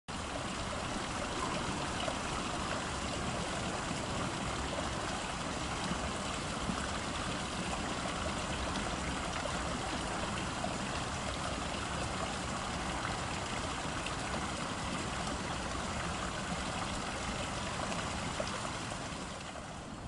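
Steady rush and trickle of running water, dipping briefly near the end.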